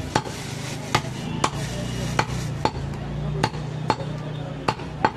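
Heavy butcher's cleaver chopping mutton shoulder on a wooden log chopping block: sharp chops about twice a second, nine in all, somewhat unevenly spaced.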